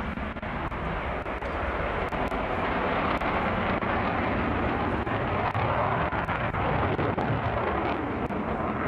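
Panavia Tornado jet in flight overhead, its twin RB199 turbofan engines giving a steady, dense jet noise heard from the ground.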